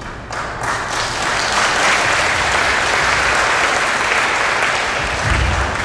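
Audience applauding, building up over the first second and then holding steady, with a brief low thump near the end.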